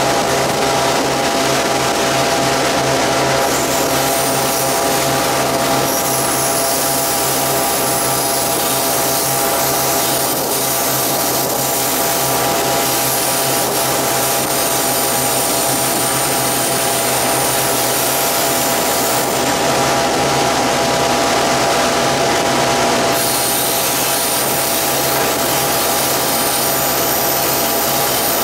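Diesel locomotive running along the line, heard from on board: a loud, steady engine drone with several held tones over the noise of wheels rolling on the track.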